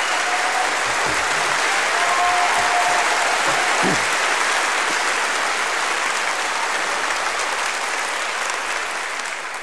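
Audience applauding steadily. It starts suddenly and dies away near the end.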